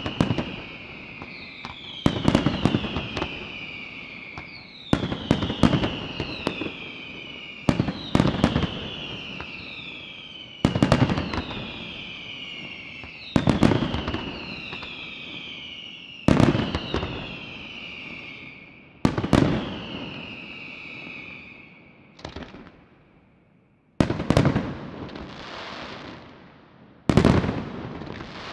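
Aerial firework shells bursting in a steady sequence, a loud bang about every three seconds, each of the early bangs trailed by a whistle falling in pitch. Over the last few seconds the bangs come with a dense crackle instead of the whistles.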